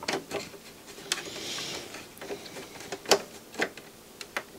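Scattered small clicks and taps of plastic parts and wiring being handled inside the open chassis of a Philips CD473 CD player, the loudest tap about three seconds in.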